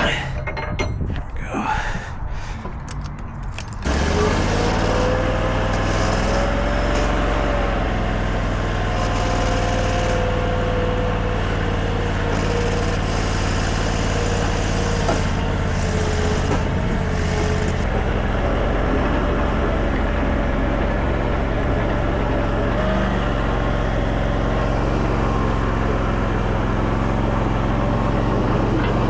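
Mini stand-up skid steer's engine running steadily, starting suddenly about four seconds in, with a higher whine above it that wavers in pitch. Before it there are light clicks and rattles.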